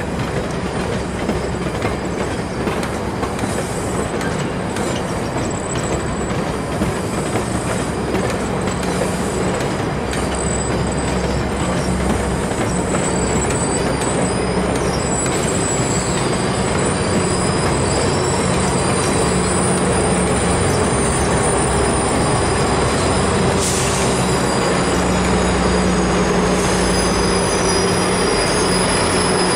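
GO Transit bilevel passenger train rolling slowly over curved station track, its steel wheels squealing in thin steady high tones over a continuous rumble. The diesel locomotive's engine hum grows louder near the end as it comes closer.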